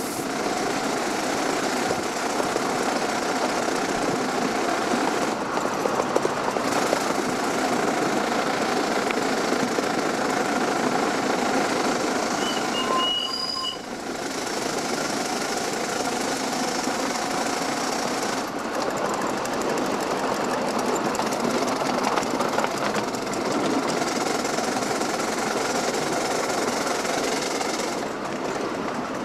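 Coal-fired 7¼-inch gauge live-steam Wren locomotive running along its track, heard from the riding car close behind it: a steady mechanical running noise. Just past the middle there is a brief dip with a short high tone.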